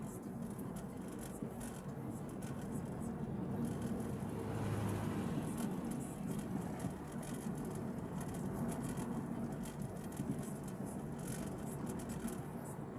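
Honda Dimension running, a steady low hum of engine and road noise with faint light ticks and rattles, and no distinct grinding standing out.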